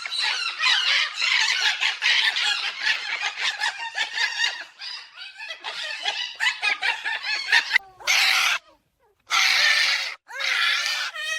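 Cockatoo screeching and squawking: a dense run of harsh calls for about the first half, then a few separate loud screeches near the end.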